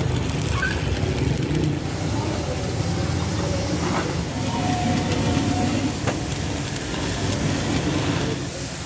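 Stick-welding arc crackling and hissing steadily as an electrode is run along a crack in a rear axle housing, over a low steady hum.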